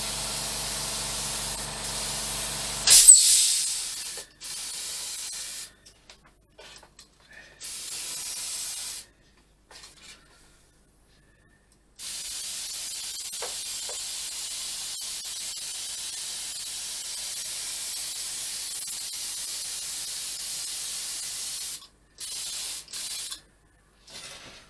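Gravity-feed spray gun spraying paint in on-off bursts of air hiss, the longest lasting about ten seconds in the second half. A low hum under the first three seconds stops with a loud burst of hiss, the loudest sound here.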